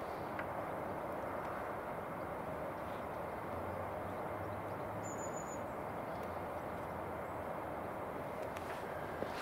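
Steady outdoor background hiss with a few faint clicks; the model engine is not running.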